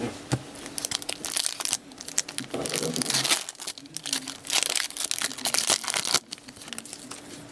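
Foil wrapper of a 2015-16 Upper Deck Series One hockey card pack crinkling and tearing as it is pulled open by hand, in a series of irregular rustling bursts.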